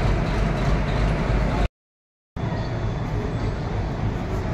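Indian Railways diesel locomotive engine running with a steady, deep, low engine sound. The sound cuts to silence for about half a second just under two seconds in, then another diesel locomotive's engine is heard as it approaches.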